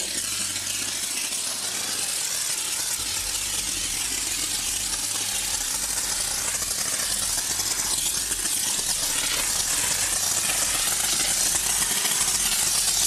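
Vapor Rino commercial vapor steam cleaner with hot water injection, its wand jetting steam against a car door panel: a steady, unbroken hiss.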